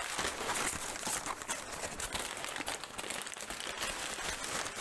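Brown kraft packing paper crinkling and rustling, with short crackles, as a paper-wrapped knife is unwrapped by hand.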